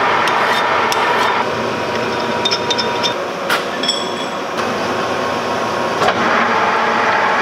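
Metal lathe running with a steady whir while silicon bronze bolts are turned and filed, with scattered small clicks and one sharp metallic clink that rings briefly about three and a half seconds in.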